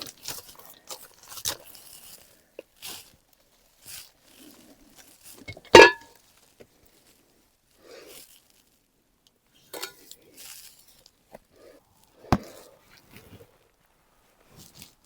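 Plant pots and potting soil being handled during repotting: intermittent rustling and scraping, with a loud knock that rings briefly about six seconds in and another sharp knock near the twelve-second mark.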